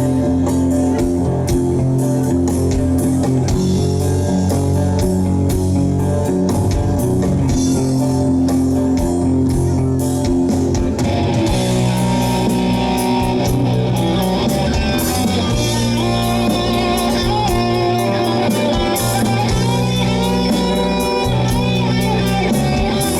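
Live rock band playing an instrumental passage, with electric guitars and bass over a steady beat. About halfway through, a brighter lead guitar line with bent notes comes in on top.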